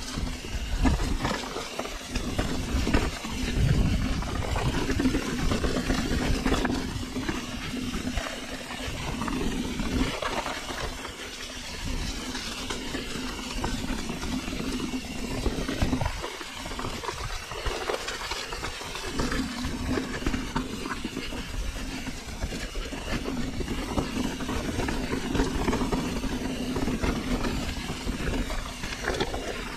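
Mountain bike riding down a rocky, loose-stone track: the tyres crunch over stones and the bike rattles and knocks on the rocks. A steady hum runs under it and drops out for a few seconds past the middle.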